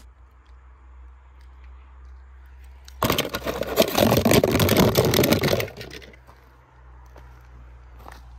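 Die-cast toy cars clattering together as they are handled, a dense rattle of small hard knocks lasting about two and a half seconds from about three seconds in, over a faint low hum.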